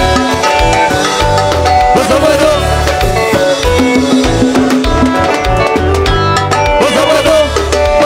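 Live band music: electric guitars, keyboard, bass and drum kit with hand drums playing a steady dance groove.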